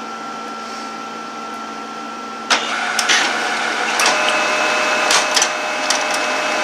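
HP LaserJet Pro 400 color laser printer starting its power-on cycle: a steady fan hum, then about two and a half seconds in its drive motors start with a clack and a whir, a second motor tone joins about a second later, with scattered clicks. The machine turns its mechanism but, with its toner transfer belt torn, does nothing more.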